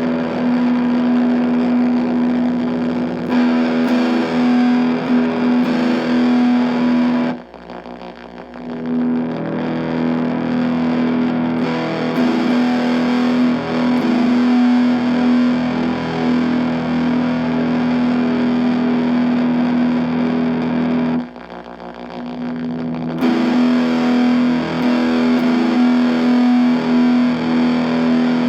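Distorted electric guitar, a Fender Jazzmaster with Stonewall Fat Jazzmaster pickups through an ESI Transponder prototype effects pedal into an Orange Micro Dark amp with the gain at 7, playing long sustained notes over one strong held low note. The sound drops away briefly about seven seconds in and again about twenty-one seconds in, then swells back up.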